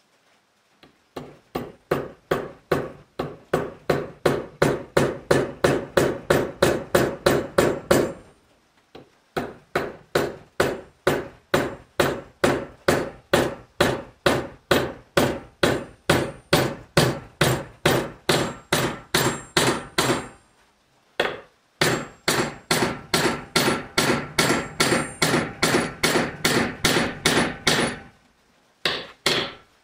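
A hammer striking the steel head of a hatchet held in a bench vise, in fast, steady blows of about three a second. The runs of blows break off briefly about 8 and 21 seconds in and again near the end.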